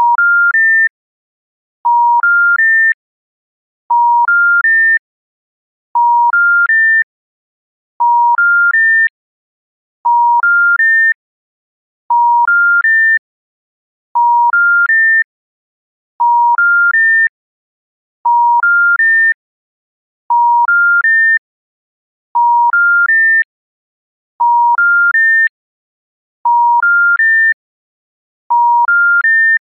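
French special information tone (SIT), older version: three steady beeps rising in pitch, about a third of a second each, then a pause of about a second, repeating. It signals that the called number cannot be reached for reasons other than busy or congestion, and it precedes a recorded failure announcement.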